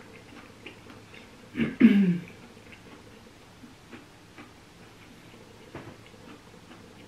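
A person chewing soft baked zucchini stuffed with ground beef and melted cheese with their mouth closed, making small wet clicks and lip smacks. About two seconds in there is one short hummed "mm" that falls in pitch.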